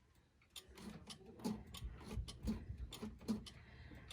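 Mechanical movement of a Howard Miller Model 4996 triple-chime clock ticking, a string of light clicks with a few dull low knocks among them.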